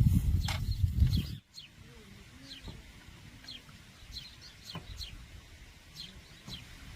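Small birds chirping: short, falling chirps repeated every half second to a second. A loud low rumble covers roughly the first second and a half, then stops abruptly.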